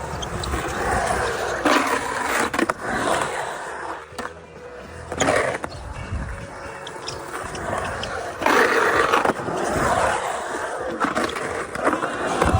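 Skateboard riding in a bowl: wheels roll with a rushing sound that swells and fades several times, broken by a few sharp clacks of the board.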